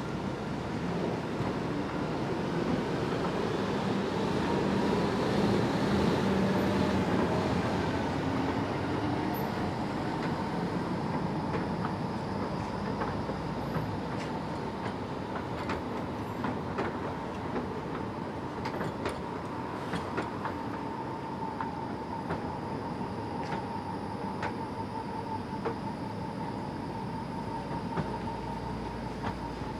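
Spårväg City tram running along its track. The running noise swells over the first several seconds, then settles to a steady sound with a faint high whine and scattered sharp clicks through the second half.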